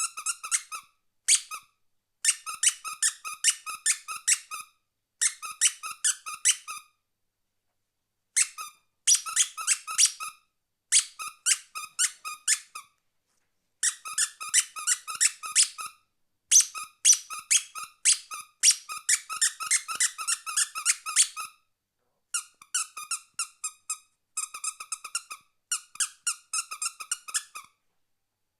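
Squeaky toy squeezed over and over: short, high-pitched squeaks, about four a second, in runs of a few seconds broken by silent pauses.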